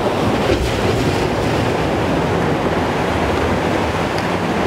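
Steady ocean surf washing against rocks, with wind rumbling on the microphone.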